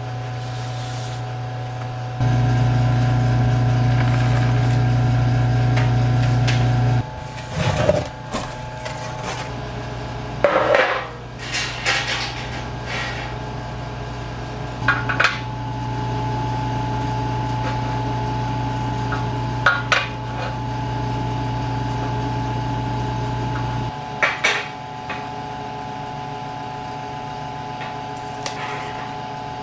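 Scattered metal clanks and knocks as metal parts are handled on a steel welding table, over a steady humming drone that swells and falls back twice.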